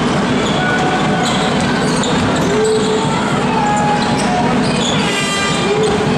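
Basketball arena crowd: a steady din of shouting and chanting, cut by short whistles and a horn blast about five seconds in, with a ball being dribbled on the hardwood court.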